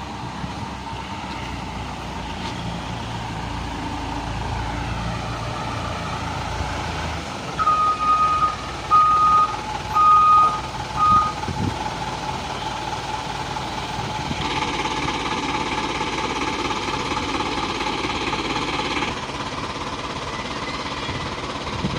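Isuzu dump truck's diesel engine running, with its reversing alarm beeping four times at one steady pitch about a third of the way in. A few seconds later the running grows fuller and louder for about four seconds.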